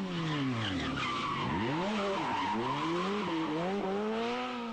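Rally car engine: the revs drop sharply as the car brakes into a corner, then climb again through a few quick gear changes, with tyres skidding and squealing on the surface.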